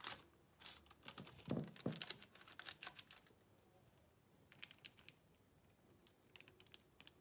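Faint, irregular soft clicks and scrapes of a silicone spatula spreading thick cake batter across a parchment-lined baking tin, busiest in the first few seconds.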